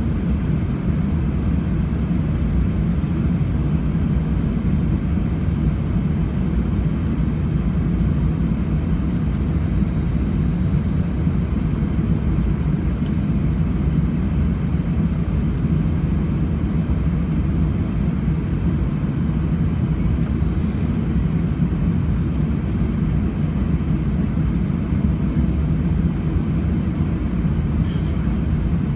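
Steady cabin noise inside a Boeing 747-400 on approach, heard from a window seat by the wing: a constant low rumble of airflow and its Rolls-Royce RB211 turbofans.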